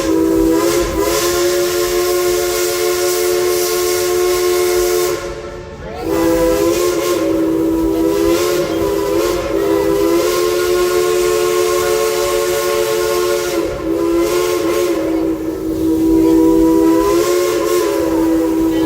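Steam locomotive's chime whistle blowing long blasts in a chord of several notes, with steam hissing. The whistle breaks off briefly about five seconds in, and the chord shifts slightly in pitch a few times.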